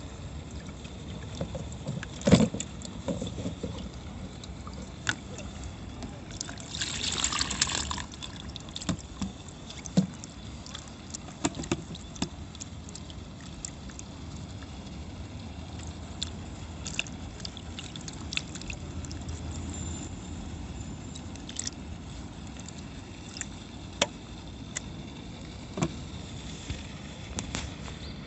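Steady low outdoor background by water, with scattered light clicks and knocks, a sharper knock about two seconds in, and a brief rush of water-like noise about seven seconds in.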